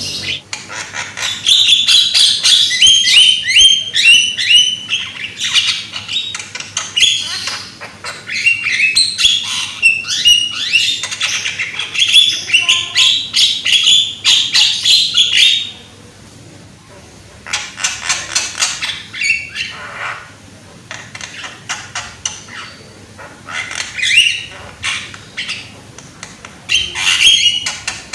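Javan myna singing loudly: fast runs of short, harsh chattering notes, a long busy stretch for the first half, then shorter bursts with pauses between them.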